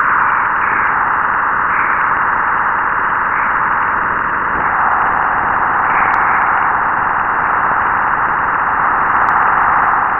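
NASA space recording presented as the sound of the planet Jupiter: a steady, dense hiss with a mid-pitched core and small swells in level, cutting off abruptly at the end.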